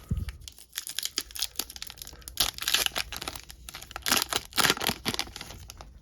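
A trading card pack's foil wrapper being torn open and crinkled by hand, in two louder spells of crackling about two and a half and four and a half seconds in.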